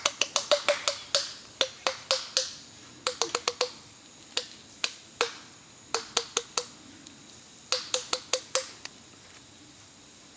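White-lipped peccary clacking its teeth: sharp, loud clacks in quick runs of four to eight with short pauses between, stopping about nine seconds in. Teeth clacking is this species' alarm and threat display.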